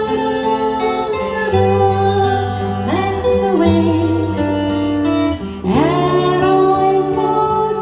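Live music: guitar accompaniment with a bass line under a sung melody.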